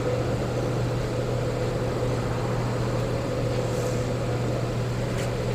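Steady low mechanical hum over an even background noise, with a couple of faint clicks in the second half.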